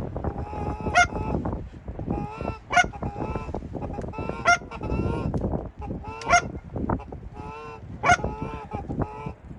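Canada geese honking: five sharp, high-pitched honks at a steady pace of about one every two seconds, with lower, softer goose calls between them, over a steady low rumble of wind.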